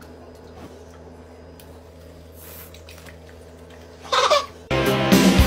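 Quiet room tone with a faint steady hum, then a short, loud burst of a small child's voice about four seconds in. Music with singing cuts in abruptly near the end.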